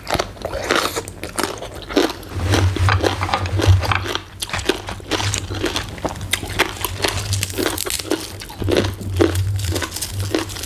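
Close-up crunchy chewing of a mouthful of som tam, crisp shredded green papaya and raw vegetables, with many quick crunches and bites.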